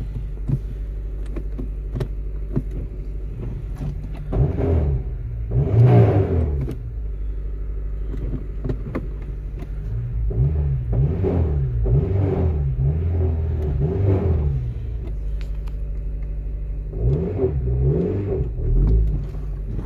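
2007 Honda Civic Si engine idling and being revved in short blips: one at about four and a half seconds, a bigger one around six, a run of quick revs in the middle, and two more near the end. The owner reports a noise from the engine that gets louder when it is revved.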